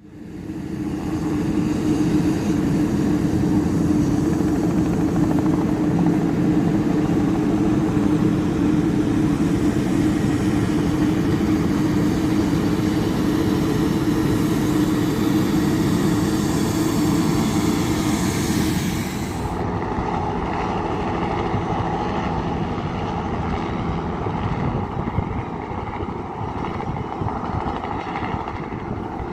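Bell 206B JetRanger III helicopter running, the whine of its Allison 250 turboshaft mixed with the rotors, loud and steady. About two-thirds through the sound changes suddenly to a thinner, slightly quieter tone.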